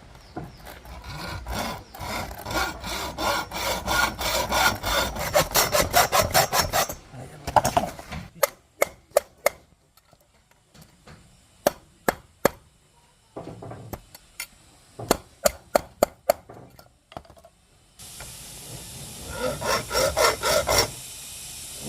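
Wood being sawn by hand in quick rhythmic strokes, about four a second. The sawing gives way to scattered sharp knocks and taps, then resumes briefly near the end.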